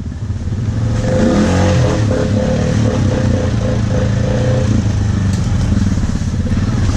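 ATV engine running under throttle, with the pitch rising about a second in as it pulls ahead. A steady whine runs alongside it for the first few seconds.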